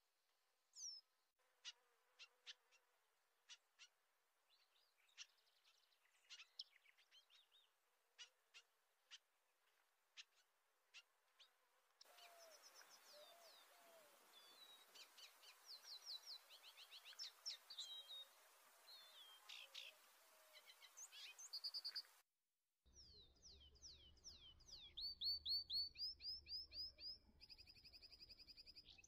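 Faint birdsong: many short chirps and whistled calls. A soft hiss joins about twelve seconds in. After a brief dropout near twenty-two seconds, quicker repeated trilled calls follow.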